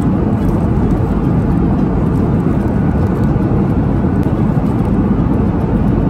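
Steady airliner cabin noise from the engines and airflow, a continuous low rushing without breaks.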